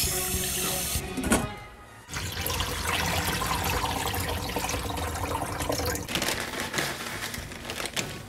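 Kitchen tap running into a stainless steel pot, then a short knock. Rice is then rinsed by hand in water in a rice cooker's inner pot, a sloshing, scrubbing wash, with music playing underneath.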